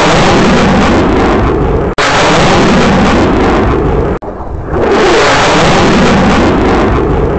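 Jet roar of U.S. Air Force Thunderbirds F-16 fighters passing fast and low overhead, very loud and overloading the microphone. The sound cuts out for an instant about two and four seconds in, then the roar swells back in with a sweeping change in pitch as another pass goes over.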